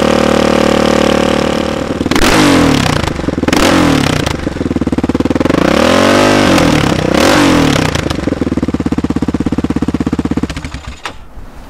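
Yamaha Raptor ATV engine through a loud straight-through competition exhaust, held at a steady half-throttle test speed, blipped twice, revved up and back down once, then held steady again before dropping off near the end. The pipe is far too loud for trail use: it measures 105 to 107 dB at test rpm and up to about 117 dB when the throttle is cracked, against a 96 dB legal limit.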